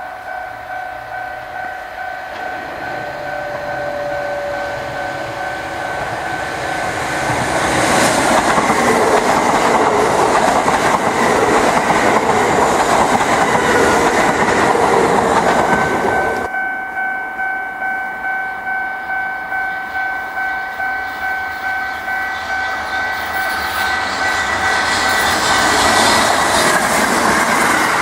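Japanese level-crossing alarm bell ringing in an even, steady beat as a Kintetsu train runs over the crossing. The train's rumble and wheel noise swell over the bell about a quarter of the way in and then drop away suddenly a little past halfway. Near the end a second train's noise builds up again over the bell.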